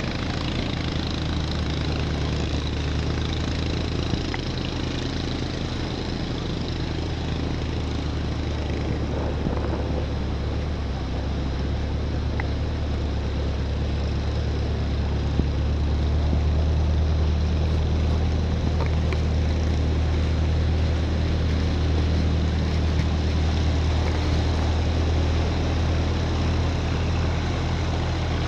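A vehicle engine running with a steady low hum, over a noisy rush of water from vehicles ploughing through floodwater on the road. It grows somewhat louder about halfway through.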